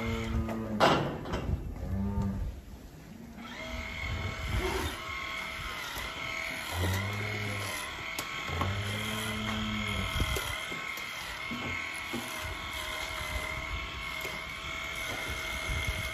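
Holstein dairy cows mooing: low, drawn-out calls of about a second each, near the start and twice in the middle. From a few seconds in until the end, a handheld electric tool used to trim a cow's tail runs with a steady whine.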